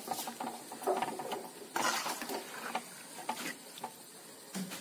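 Metal slotted spoon stirring silkworms and chopped vegetables in water in a wok: irregular scrapes and clicks against the pan, with the loudest stretch about two seconds in.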